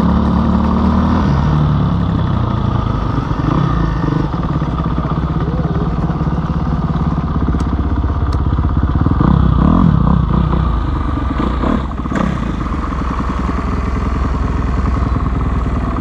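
Dirt bike engine running steadily under way, with the revs rising and falling several times about nine to ten seconds in.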